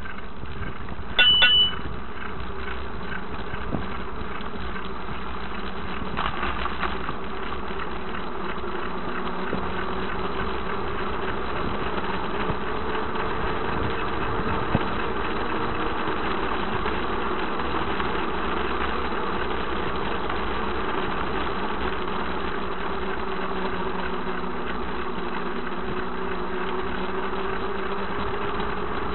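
Vehicle engine running steadily while driving, its tone rising and falling slowly with a constant road and engine hum. A few short high beeps sound about a second in, the loudest moment.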